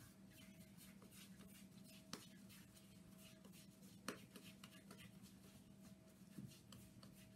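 Faint soft rubbing and patting of floured dough being rolled and worked into a ball between the palms, over a steady low hum. Two sharper clicks stand out, about two and four seconds in.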